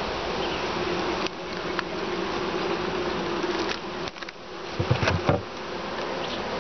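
A honeybee colony buzzing steadily around an opened long frame hive, a continuous hum. A few light clicks and knocks from the hive's frames being handled come through, with a couple of low thumps near the end.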